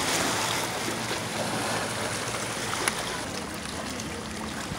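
Small waves washing and lapping over a rocky shoreline, a steady wash of water, with a faint low hum underneath and a single sharp click about three seconds in.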